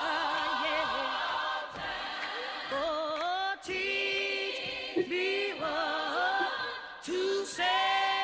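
Gospel singing: a voice holding long, drawn-out notes with a wavering vibrato, with no words made out.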